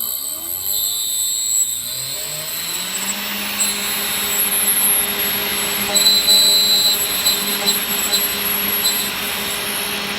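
Lathe motor switched on, its whine rising in pitch over about two seconds as it spins up, then running steadily with a hum and a hiss, with a few light ticks in the second half.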